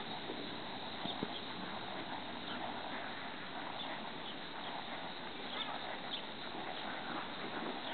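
Hoofbeats of a Quarter Horse mare walking under a rider on a soft dirt arena, faint and irregular, over a steady outdoor hiss.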